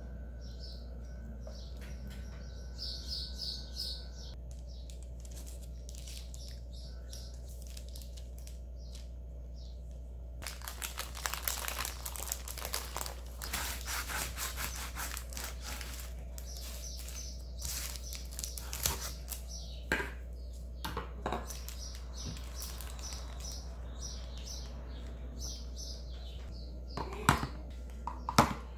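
Kitchen food-prep noises over a steady low hum: a few faint high chirps early on, then the crinkle and rustle of paper wrapping as a paper-wrapped tortilla wrap is cut on a plastic cutting board, then light clicks and a few sharp taps near the end as small plastic cups are set into plastic lunch boxes.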